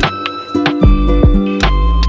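Background music with a steady beat: a deep bass line under sustained pitched notes, with sharp drum hits.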